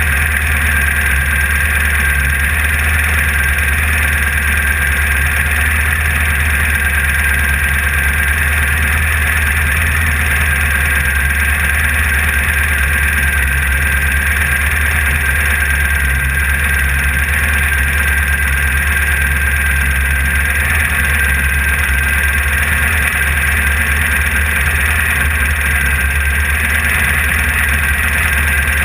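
Class 1600 off-road race car's engine running loud and steady, heard from inside the car, with no changes in revs.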